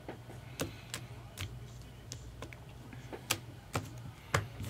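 Trading cards being flipped and handled during a pack opening: a string of sharp, irregular clicks and taps, about two a second, over a low steady hum.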